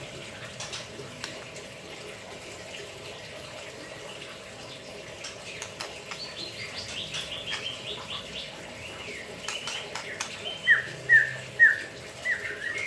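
White-rumped shama singing while it bathes, with splashes of water: soft twittering phrases, then near the end a run of loud, short falling notes, about two a second.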